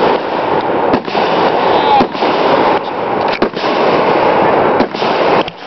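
Fireworks going off in a dense, continuous crackle, broken by several sharper bangs. A faint whistle glides briefly about two seconds in.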